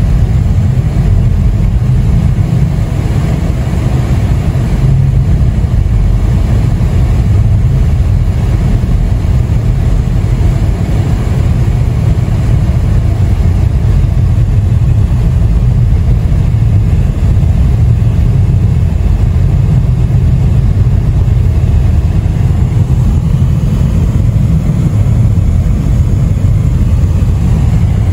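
Car interior noise while driving on a snow-covered highway: a steady low rumble of engine and tyres.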